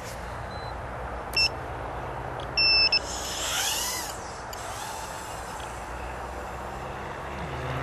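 Two high electronic beeps, a short one and then a longer one, over a steady hiss. In the last moment a rising whine begins as a micro quadcopter's motors spin up.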